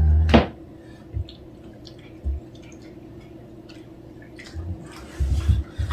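Cats licking and smacking at a lickable treat, heard as faint wet clicks, with a few dull low thumps, most of them near the end.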